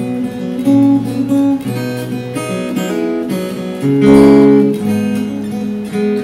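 Acoustic guitar played solo, picked and strummed chords, with a louder strummed chord about four seconds in.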